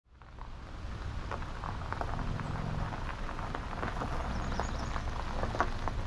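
Outdoor ambience fading in over the first second: a steady low rumble with many small irregular clicks and short chirps scattered through it, and one sharper click near the end.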